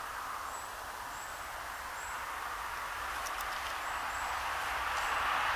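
A vehicle approaching: an even rushing noise that grows steadily louder. Faint, short, high chirps repeat about once or twice a second over it.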